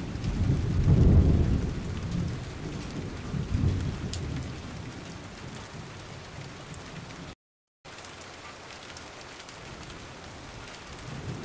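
Rain with rolling thunder rumbles, loudest about a second in and again near four seconds, then settling to steady rain alone. The sound cuts out completely for about half a second past the middle.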